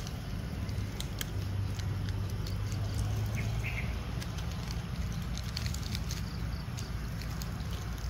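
Scattered crackles and clicks of plastic jelly wrappers handled by macaques, over a steady low rumble, with one brief high squeak about three and a half seconds in.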